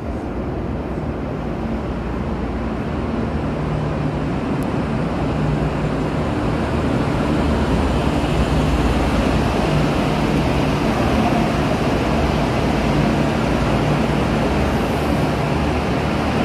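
V/Line VLocity diesel multiple unit running past on its diesel engines, a steady low engine hum with rail rumble, growing louder over the first half as it draws alongside, then holding steady.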